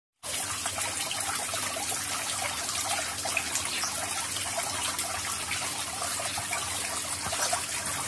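Water trickling and splashing steadily from a small tiered garden fountain.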